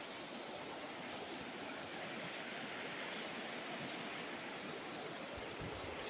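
Fast-flowing river rushing over rocks, a steady hiss of water. A low rumble comes in near the end.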